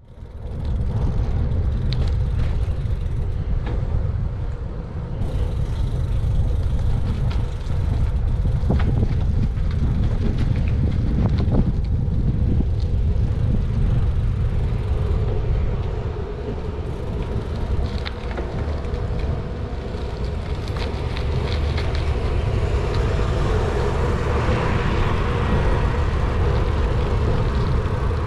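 Riding sound of a Surly Cross Check steel bicycle, picked up by a bike-mounted GoPro: a steady low rumble of tyres rolling on asphalt and wind over the camera, with scattered clicks and rattles from the bike.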